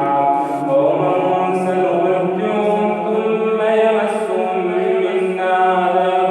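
A male reciter chanting Quranic recitation in a slow, melodic style, drawing out long held notes.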